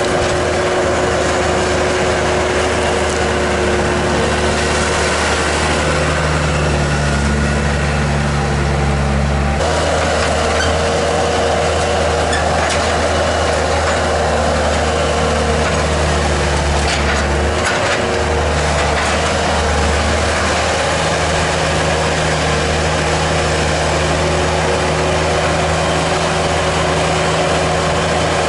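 Bobcat T300 compact track loader's diesel engine running steadily as the machine works its pallet forks into a pile of logs. The engine note changes about ten seconds in.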